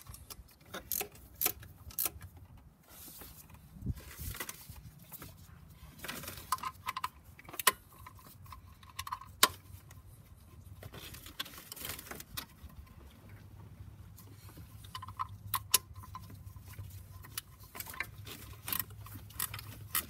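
Scattered sharp metallic clicks and clinks of a 13 mm ratchet wrench and hardware being worked by hand in a crowded engine bay while accessory mounting bolts are tightened.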